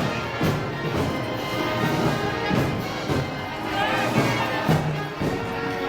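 A live band plays festival music, with held notes over a steady beat of drum hits.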